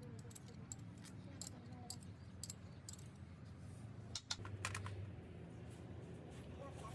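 Scattered light clicks and taps, irregular and several to the second, over a low steady hum, with a short cluster of louder clicks a little past four seconds in.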